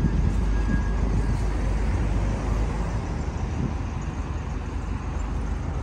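Steady noise of road traffic passing along a town-centre street.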